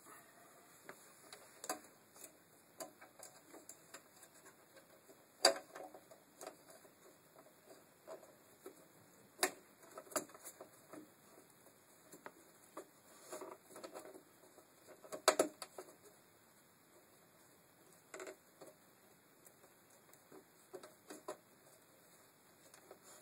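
Scattered small clicks and taps of hands working VW Passat B5 window regulator parts on the metal door carrier panel, irregular, with a few louder clacks.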